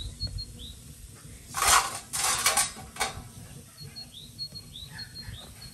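Porridge boiling in a lidded aluminium saucepan on a wood-burning stove: a burst of lid rattle and spitting steam between about one and a half and three seconds in.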